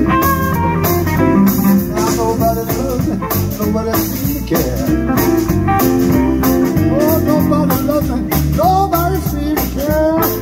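Blues band playing live: a guitar line with bending notes over bass and a steady beat.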